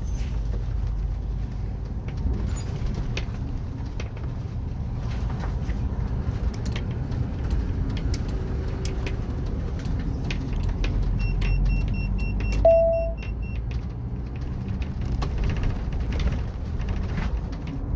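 Bus-based camping-car driving along a country road, heard from inside the cab: a steady low rumble of engine and road, with scattered rattles. One short beep sounds about two-thirds of the way through.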